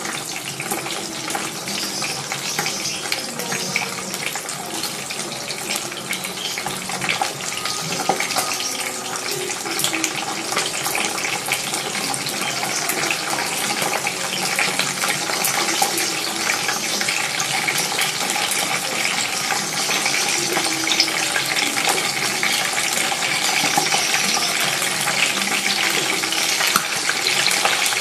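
Butterflied milkfish (dinaing na bangus) sizzling in hot oil in a non-stick frying pan: a steady spitting, crackling hiss that grows a little louder.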